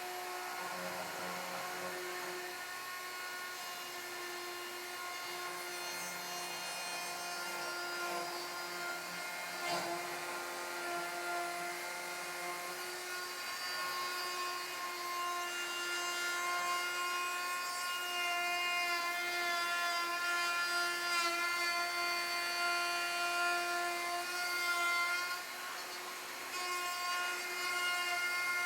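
Electric router running with a steady high whine while its bit cuts a housing slot into a wooden staircase stringer, guided along a rail. It gets a little louder in the second half and briefly drops off before picking up again near the end.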